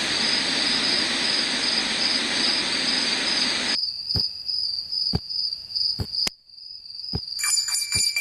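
Night insects chirping in a steady high pulse under a loud, even hiss that cuts off suddenly about four seconds in. After that the chirping goes on with a few sharp clicks and a brief dropout, and near the end a denser chorus of higher chirps with rapid clicks joins in.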